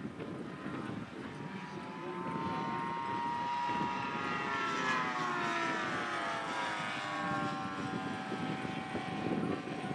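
Radio-controlled RV-4 model aeroplane flying overhead, its motor and propeller droning with a pitch that climbs to about halfway and then falls away as it manoeuvres past.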